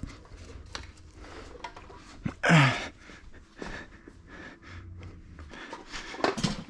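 Clicks and knocks of a cast-aluminium engine part and the camera being handled, over a low hum. About two and a half seconds in there is one loud, short sound falling in pitch, and a louder knock comes near the end.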